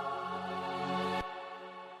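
Background music: a held electronic keyboard chord fading out. Its bass notes drop away about a second in.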